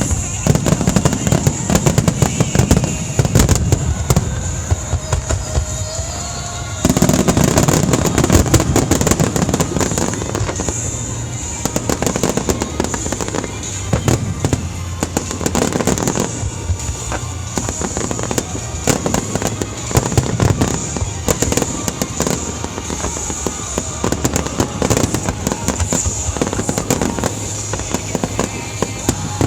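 Fireworks finale: a dense, continuous barrage of shell bursts and crackling, one bang after another with no break. It swells louder about seven seconds in.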